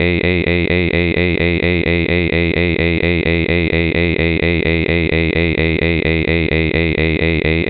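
A synthesized voice holding one long, loud "mmmm" hum at a steady pitch, with a regular wobble about five times a second.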